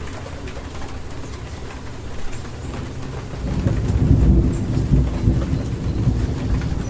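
Steady rain falling, with a deep rumble of thunder that swells about halfway through and keeps rolling.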